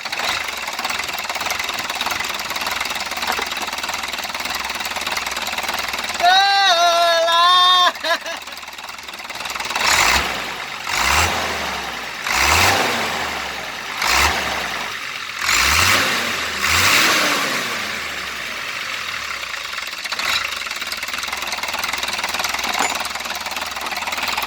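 Hino truck diesel engine idling, then revved in about six short blips between roughly ten and eighteen seconds in. About six seconds in, a loud wavering tone lasts about two seconds.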